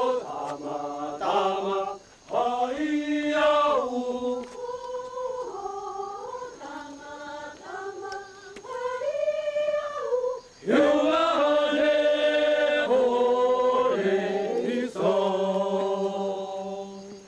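A group of Tsou voices singing a traditional song in unison, unaccompanied, in long held notes that step between pitches. Phrases break off briefly about 2 seconds in, near the middle and again about 15 seconds in.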